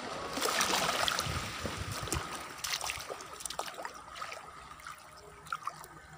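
Shallow seawater washing and trickling at the shoreline, with small splashes, loudest in the first second or so and then easing off.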